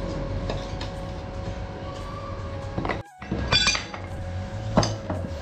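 Metal tools clinking and knocking against a steel scooter wheel rim as a tyre is levered off. There is a cluster of sharp clinks about three and a half seconds in and a single loud knock near the end.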